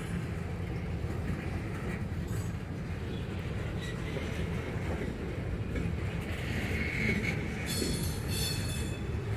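Freight cars of a Norfolk Southern train rolling past, wheels running on the rails with a steady low rumble. Faint high-pitched wheel squeals come in near the end.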